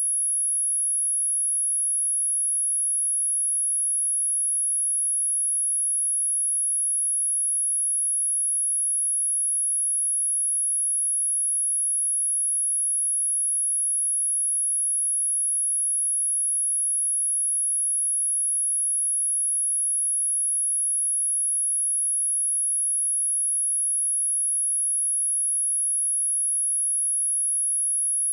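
A single steady, high-pitched 10726 Hz sine-wave test tone, held at an even level with no change.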